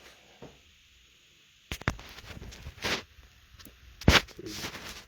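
Several sharp knocks and clunks, about five in all and spread out, with a short scraping rustle about four and a half seconds in: objects being handled and set down during work on a scooter.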